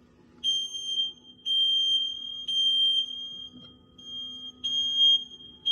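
Photoelectric smoke detector in alarm, sounding a high-pitched beep about once a second, set off by smoke from smouldering cotton.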